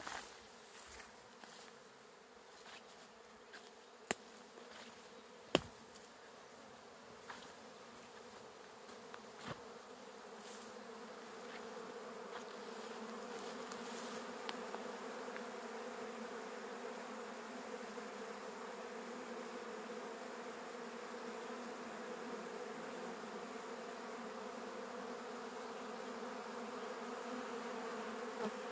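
Honeybees buzzing in a steady hum around their hives, growing louder over the first dozen seconds and then holding steady. A few sharp clicks stand out in the first ten seconds.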